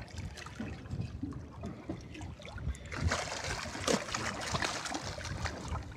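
Water splashing and slapping at a boat's side as a hooked yellowtail kingfish thrashes at the surface. The splashing grows louder from about three seconds in.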